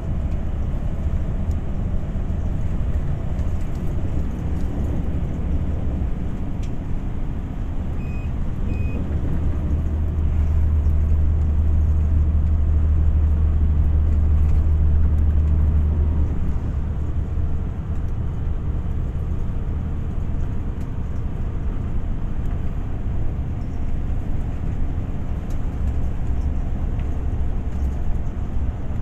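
Steady low rumble of a running motor vehicle, louder for a few seconds midway, with two short high beeps about eight seconds in.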